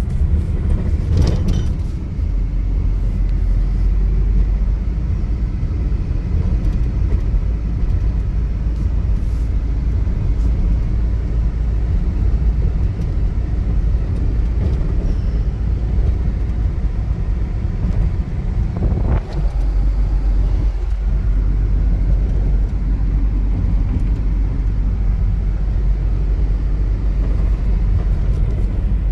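Cab noise of a 2000 Nissan Frontier XE pickup on the move: a steady low rumble from its 2.4-litre KA24DE four-cylinder engine and the road.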